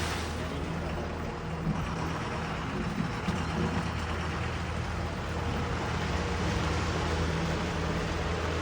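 Steady low hum of a vehicle engine running, with a faint steady whine above it.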